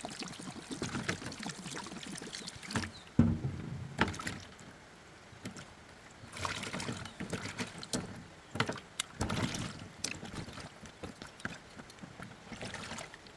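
Water sloshing and splashing as broken pieces of coconut meat are washed by hand in a container of water, with a few sharp knocks as the pieces hit each other or the container.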